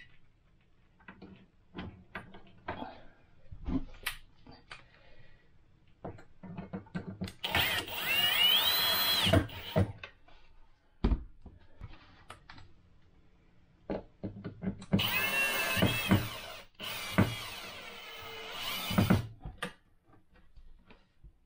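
Cordless drill/driver driving screws through a metal folding shelf bracket into the side of a cabinet, in two runs of the motor whose whine rises in pitch; the second run is longer. Small clicks and taps of handling the screws and bracket come before the first run.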